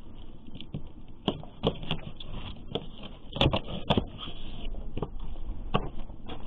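Kitchen knife cutting up a raw rabbit carcass on a wooden cutting board: irregular sharp knocks of the blade striking the board, about eight of them, the loudest a little past three and four seconds in.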